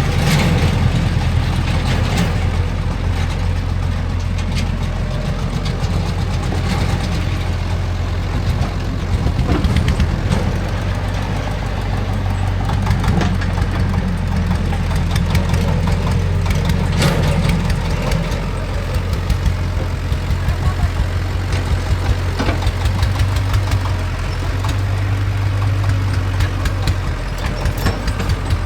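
Heavy diesel engine of construction machinery running steadily, a low, even hum with a constant clatter.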